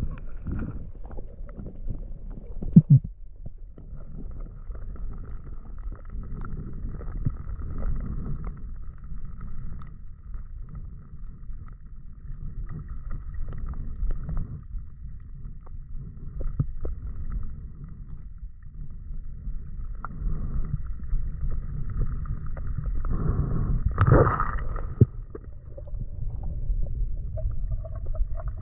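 Muffled underwater noise picked up through a camera housing: a steady low rumble of moving water with gurgles and a few sharp knocks, the loudest about three seconds in and another near the end.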